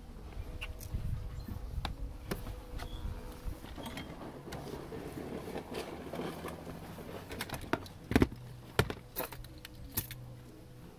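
Scattered clicks, taps and rustling from hands and tools working on parts at a car's steering column, with several sharper, louder clicks a few seconds from the end.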